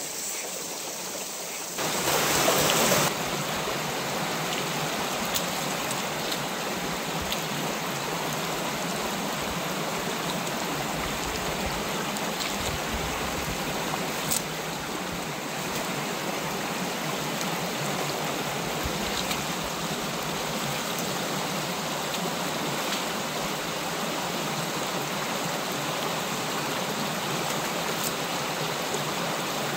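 Mountain stream running steadily over rocks, a continuous rush of water that swells briefly about two seconds in. A single sharp click sounds about halfway through.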